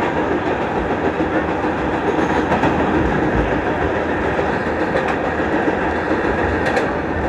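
Vintage New York City subway train running at speed, a steady rumble with wheels clattering over the rail joints.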